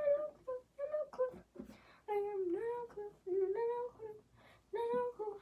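A girl humming a wordless tune to herself: a string of notes, some short and some held for about half a second, wavering up and down in pitch.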